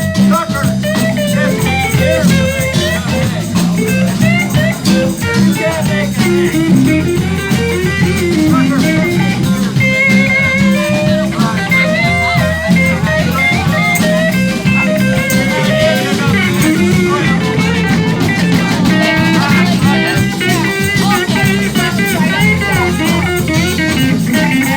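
Live blues band playing: a guitar lead with bending notes over a steady bass line and drum kit.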